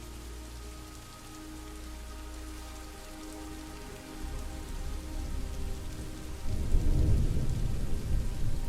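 Steady rain falling, with a low rumble of thunder that builds about four seconds in and is loudest for the last couple of seconds. Soft, sustained tones of meditation music sit underneath.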